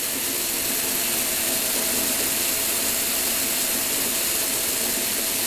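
Lego Technic curved conveyor running steadily, its electric motors and plastic gears and chain links whirring together.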